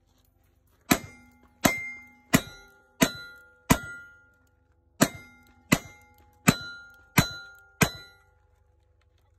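Ten shots from Colt Walker black-powder cap-and-ball revolvers, fired as two quick strings of five, one revolver emptied and then the other, about 0.7 s between shots and a short pause between strings. Each shot is followed by a ringing clang from steel targets.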